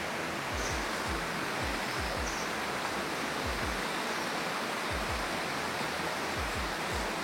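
Steady rushing of a valley stream, with soft low thuds coming in pairs about once a second.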